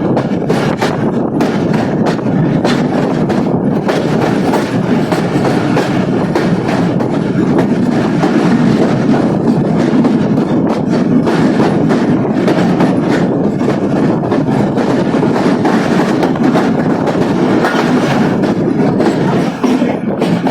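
A train running along the track: a steady rumble, with the wheels clacking over rail joints throughout.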